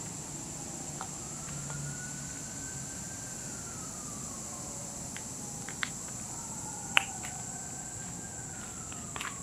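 Emergency-vehicle siren wailing, its pitch slowly rising and falling in long sweeps, over a steady high-pitched hum.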